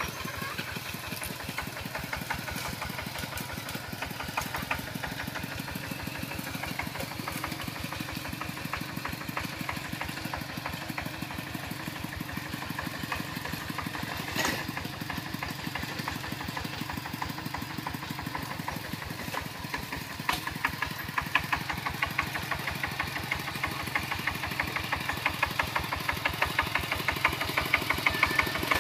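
Single-cylinder diesel engine of a Kubota two-wheel walking tractor running steadily with a rapid, even chug as it pulls a disc plough through the soil. The firing gets louder and harsher from about twenty seconds in.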